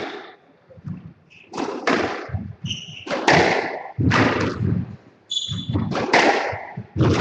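Squash rally: the ball cracks off rackets and the court walls about once a second, each hit ringing in the enclosed court, with a few short squeaks of shoes on the wooden floor.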